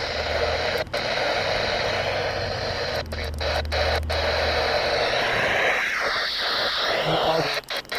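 Radio static: a steady hiss of noise from a weak or untuned weather-radio signal, with a faint low hum under it. The signal cuts out briefly several times, around three seconds in and again near the end.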